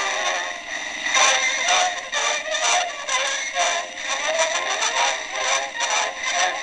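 Pathé Model No. 1 cylinder phonograph playing a recording through its glass horn: thin, tinny music with no bass and a steady hiss of surface noise.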